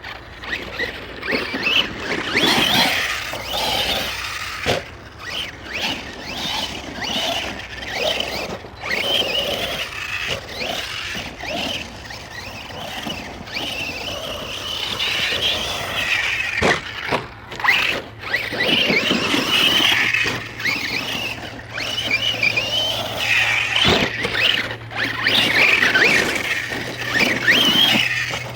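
Arrma Outcast 1/8-scale electric RC stunt truck running on a 4S battery: its brushless motor and drivetrain whine, rising and falling in repeated throttle bursts, with a few sharp knocks.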